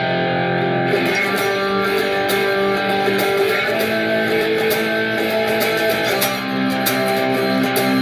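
Instrumental music led by plucked guitar, with held, layered notes at an even level: a newly composed ringtone tune being played back.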